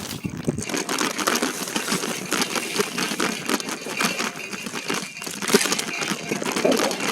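E-bike riding over a rough dirt trail: tyres crunching over the ground while the bike, its basket and a loose phone mount rattle with many quick clicks and knocks.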